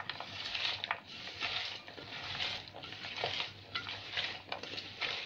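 A hand mixing chopped potato, bell peppers, onion and spices in a metal pan: repeated wet swishing strokes, about one a second, with light clicks of the food against the pan.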